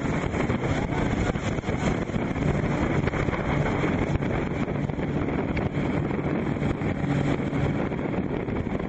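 Motorboat engine running, with a low steady hum under a constant rush of water and wind buffeting the microphone.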